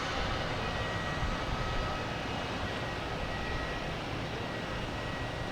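Jet airliner engines running at a distance: a steady rumbling rush with a faint high whine, easing off slightly early on and then holding steady.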